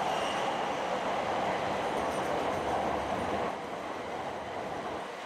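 JR East E5 series Shinkansen bullet train pulling into a station platform, its cars passing with a steady rushing noise that eases a little about three and a half seconds in.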